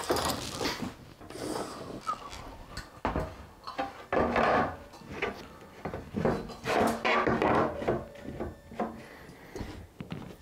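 Loose wooden planks being set down and slid over an aluminium ladder frame: irregular knocks, clatters and scraping.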